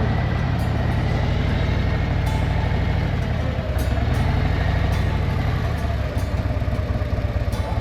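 Harley-Davidson touring motorcycle's V-twin engine running steadily under way, a dense low rumble, with wind and road noise over it.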